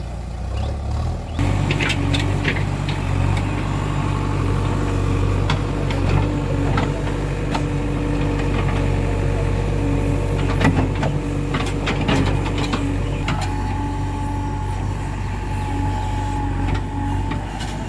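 JCB 3DX backhoe loader's diesel engine running steadily under load while its backhoe bucket digs and scrapes soil, with scattered clanks and knocks. The sound jumps louder a little over a second in, and a steady higher whine joins about two-thirds of the way through.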